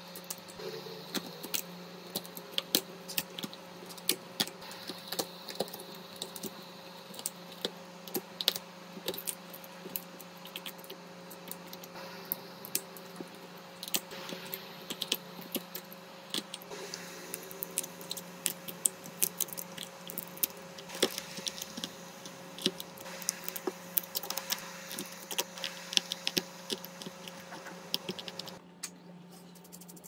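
Many quick, irregular clicks and taps of small hand tools on a phone during an iPhone back-glass repair, over a steady electrical hum from bench equipment. The higher tone of the hum cuts off near the end.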